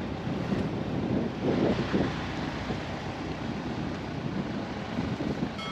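Wind buffeting the microphone: a rushing, gusting noise that swells about one and a half to two seconds in.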